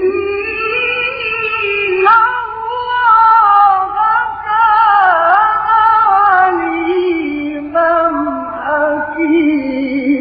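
A male Quran reciter's voice in melodic mujawwad-style recitation, drawing out one long, ornamented phrase with wavering turns that dips in the middle and settles lower near the end.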